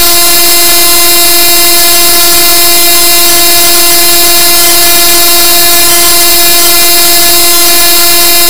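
A single loud, horn-like electronic tone held at one steady pitch, harsh and distorted.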